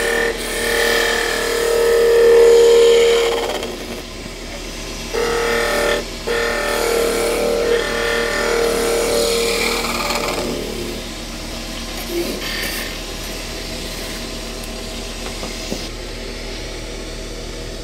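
Wood lathe running while a turning chisel cuts the spinning wood blank. The cut gives a steady whine in two long passes, one over the first three and a half seconds and one from about five to ten seconds in. After that the lathe runs on alone.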